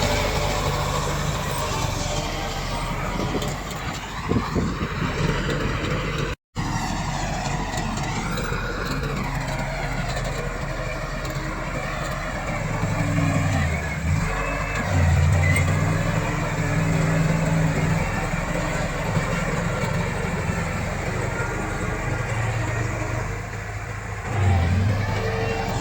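Komatsu D68 crawler bulldozer's diesel engine working steadily, its note dipping and recovering several times as it lugs under load pushing soil. The sound cuts out for an instant about six seconds in.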